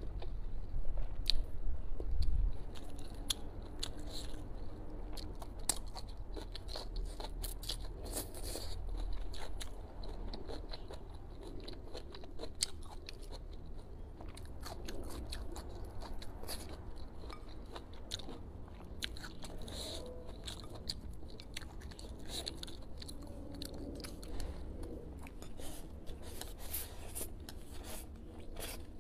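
Close-up chewing and biting: a person eating braised pork ribs and green vegetable stalks, with steady crunching and many small mouth clicks.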